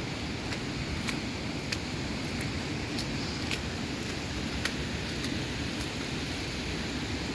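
Wind rumbling on the microphone in a steady noisy hiss, with faint crisp ticks about every half second.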